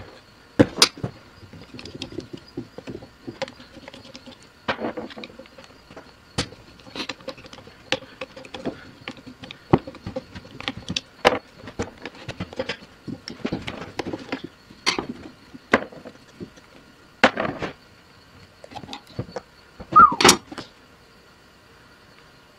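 Metal parts of a lever-type shock absorber being handled and pried with a screwdriver over a plastic drain pan as its cover comes off: irregular clinks, taps and scrapes, with a louder clatter about twenty seconds in.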